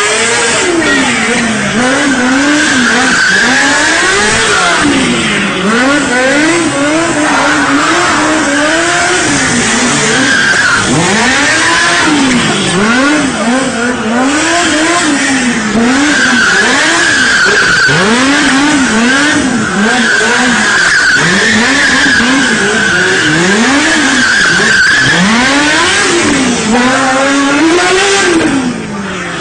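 A high-revving engine swinging up and down in pitch about once a second, over and over, with tyre squeal coming and going on top: a vehicle being driven hard through spins or a burnout.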